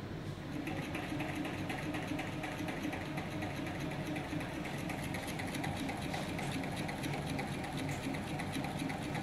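Oil-analysis autosampler's pump motor starting about half a second in and running steadily with a fast, even pulse, drawing the oil sample through the tubing toward the FTIR flow cell.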